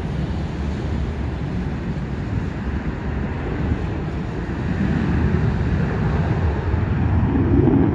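Distant jet engine roar, a steady rumble that grows louder over the last few seconds.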